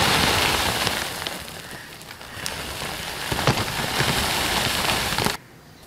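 Dry bread crumbs poured onto a heap of flour in a plastic bowl: a steady rustling hiss with scattered small ticks. It eases a little in the middle and stops abruptly near the end.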